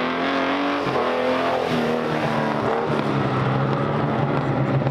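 Vintage race car's engine revving as it accelerates along the track: its pitch climbs and drops sharply a little under a second in, climbs and drops again about two seconds in, then holds lower and steadier as the car pulls away.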